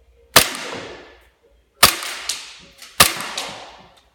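Tokyo Marui Glock 34 gas blowback airsoft pistol firing three single shots on green gas, each a sharp pop with the slide cycling, followed by a short ringing tail. A fainter click follows the second and third shots.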